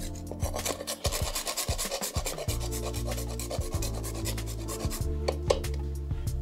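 A whole nutmeg grated on a fine stainless-steel rasp grater (WMF): quick rasping strokes, dense for about the first two and a half seconds, then more spaced-out scrapes.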